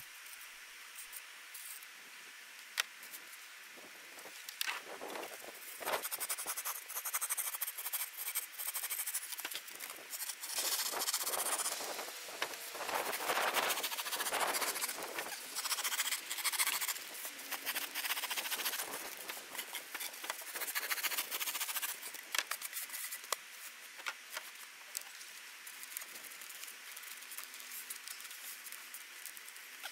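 Serrated knife shaving and scraping the foam around a fan hole in a foam cooler lid, in irregular scratchy strokes with small knocks as the foam and fan are handled; busiest through the middle, easing off near the end.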